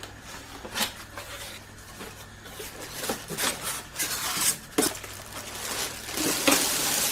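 Hands handling a small plastic mini fridge and its packaging: irregular rustling and scraping with light clicks and knocks, getting busier and louder toward the end, over a low steady hum.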